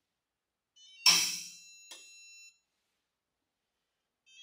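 Icon split-beam torque wrench loaded on a torque tester, giving a short rising creak and then one sharp click about a second in as it breaks over at its 150 ft-lb setting, followed by a steady high ringing tone and a lighter click as the load comes off. Near the end a rising creak begins again as the wrench is loaded for the next pull.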